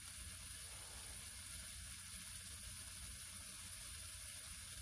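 Diced onion, carrot and celery sizzling steadily in oil in a frying pan.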